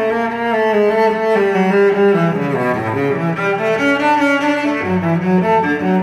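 Background music: bowed string instruments playing a melody of held notes over lower bass notes.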